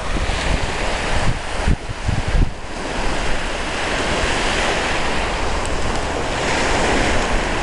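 Ocean surf washing onto a sandy beach, with wind buffeting the microphone in low gusts during the first couple of seconds, then a steadier swelling wash of the waves.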